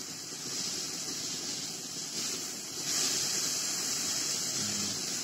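Sliced mushrooms sizzling and hissing in a frying pan as the water they have released boils off; the hiss grows a little louder about three seconds in.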